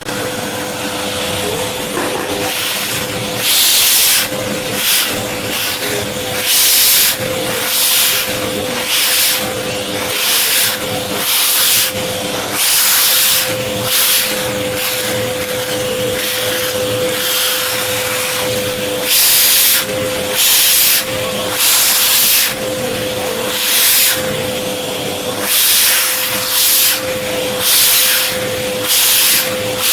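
Vacuum cleaner running with a steady motor whine, broken by repeated louder rushes of suction hiss about once a second or so as the nozzle is drawn over a cat's fur.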